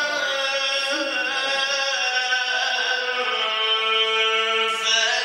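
Male Quran reciter chanting a long, unbroken melismatic phrase in the Egyptian mujawwad style, his unaccompanied voice held and sliding between pitches, with a brief hissed consonant near the end.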